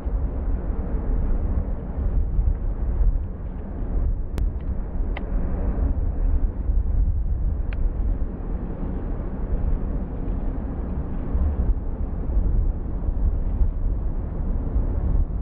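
Steady low rumble of a Boeing 787 Dreamliner's GEnx jet engines on final approach, heard from a distance, with a few short faint clicks near the middle.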